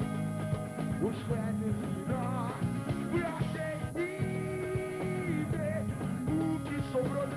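Live rock band playing a steady groove with bass, guitar and drums over a festival PA. A wavering melody line runs over it, and a long held note sounds about four seconds in.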